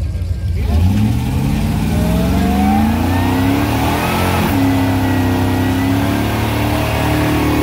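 Car engine revving up from idle about a second in, the pitch climbing for a couple of seconds, then held at steady high revs.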